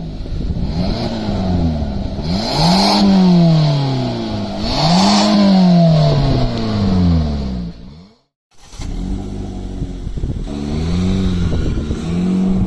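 MG 3's engine revved through its exhaust as it was before the custom exhaust went on, in several blips whose pitch rises then falls back, two big ones followed by smaller ones. The sound drops out briefly about eight seconds in.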